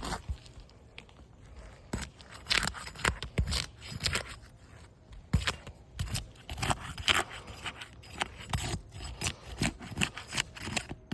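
A shingle seal-breaking snake tool worked under asphalt shingle tabs: irregular scraping and crackling as the adhesive seal strips are broken loose.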